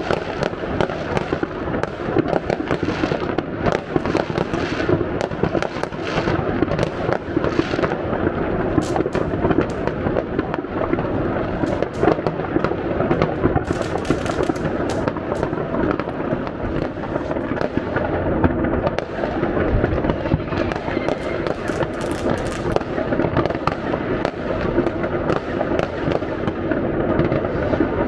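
Dense, continuous New Year's Eve fireworks: many rockets and firecrackers going off at once, a constant crackle with frequent sharp bangs and pops and no break.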